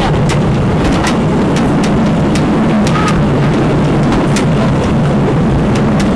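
Train running along jointed track: a steady low rumble with sharp wheel clicks over the rail joints, every half second to a second.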